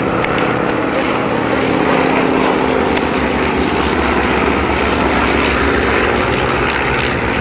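Piston engines and propellers of a formation of four vintage biplanes flying past, a steady drone whose low rumble grows stronger about halfway through.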